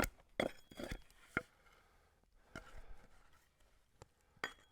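Axe strokes on cedar, hewing a handmade cedar shake: sharp knocks, a quick run at first, then a few spaced strokes.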